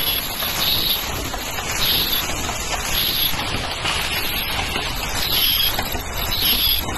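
Automatic surgical-mask production machinery running: a steady mechanical noise, with a brighter hiss that swells roughly once a second.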